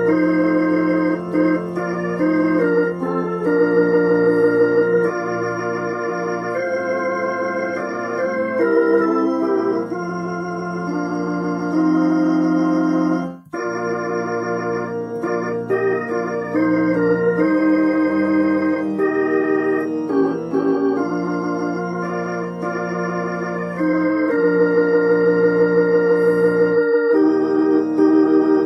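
Roland HP 704 digital piano played with an organ voice: a slow hymn in held chords whose notes sustain without fading, changing every second or two, with a brief break about halfway through.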